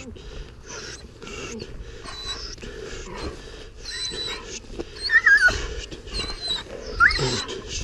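Young dog giving two short, wavering high-pitched whines, about five and seven seconds in, amid scuffling of paws and feet on asphalt.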